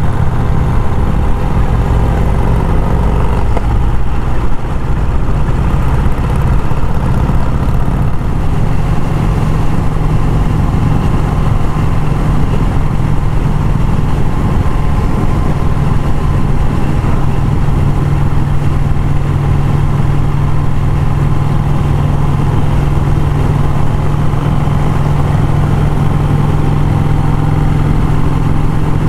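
1951 Vincent Rapide's 998 cc V-twin engine running steadily while the motorcycle is ridden at road speed, heard from the bike itself.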